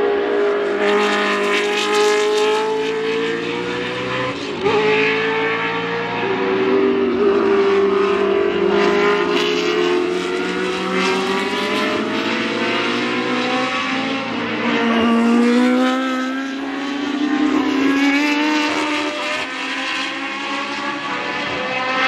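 Historic Formula 1 race car engines at high revs passing on a circuit, the engine notes rising and falling as the cars accelerate and slow for corners, with several cars overlapping. One sharp crack about five seconds in.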